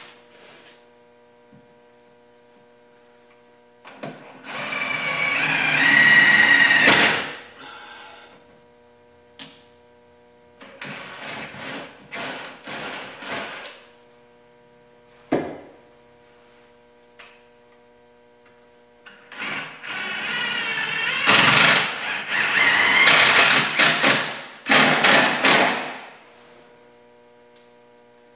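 Power drill running on sheet metal screws in bursts, its pitch wavering as it loads: a run of about three seconds, then shorter spurts, then a longer run of several seconds near the end. A single sharp knock comes in between, over a steady low hum.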